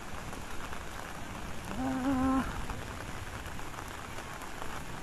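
Steady rain falling, an even hiss. About two seconds in, a short pitched call like a voice, held on one note for about half a second, stands out as the loudest sound.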